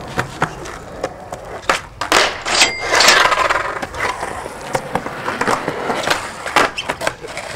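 Skateboard wheels rolling on a concrete sidewalk, with repeated sharp clacks of the tail popping and the board hitting the pavement during a flatground flip trick; a louder clattering scrape comes about two to three seconds in.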